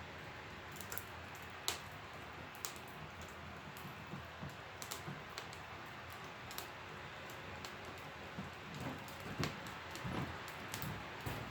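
Wood fire crackling in a wood stove: irregular sharp pops and clicks over a steady low hiss, with a few soft low thumps in the second half.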